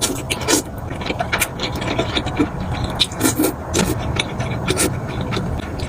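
Mukbang eating sounds: a person chewing with quick, irregular mouth clicks and smacks.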